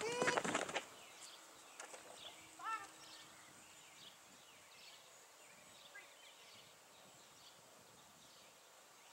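A loud shouted call at the very start and a shorter call about three seconds in, then faint outdoor ambience with many short, high bird chirps scattered through it.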